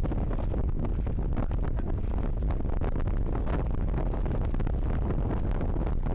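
Strong wind, over 22 knots, buffeting the microphone aboard a racing sailboat: a steady low rumble with many short crackles.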